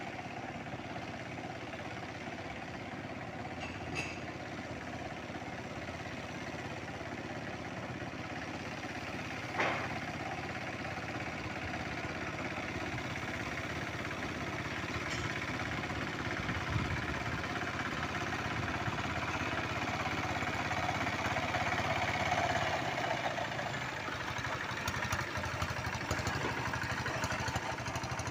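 Tractor engine running steadily while plowing a flooded rice paddy, growing a little louder in the second half. A single knock sounds about ten seconds in.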